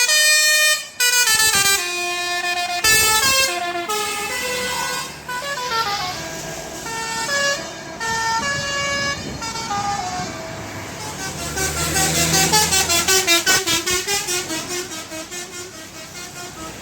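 Telolet bus horn: a set of musical air horns playing a tune of stepping notes, several horns sounding together. In the second half it changes to a fast pulsing warble of overlapping pitches.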